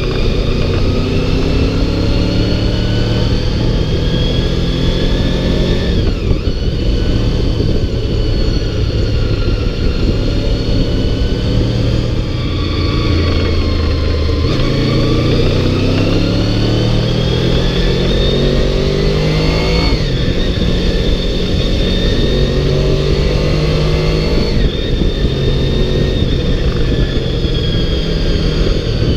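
Honda VFR V4 motorcycle engine under way on the road, its pitch climbing and then dropping back several times as it pulls through the gears, with heavy wind noise on the microphone.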